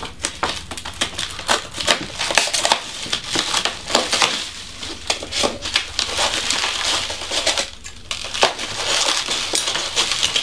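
Plastic packaging being cut away and pulled off, a continuous crinkling and crackling with many sharp rustles and a short lull near the end.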